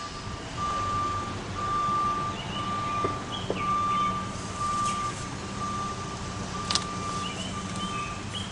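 An electronic alarm beeping at one steady pitch about once a second, in the manner of a machine's reversing alarm, over the low rumble of an engine running. A few bird chirps and a sharp click come in over it.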